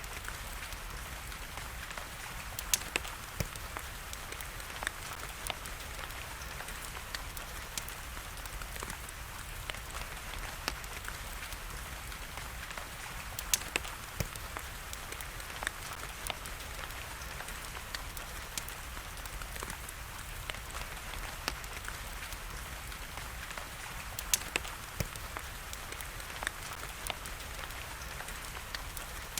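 Wood fire crackling, with scattered sharp pops and a few louder snaps, over a steady hiss of falling rain.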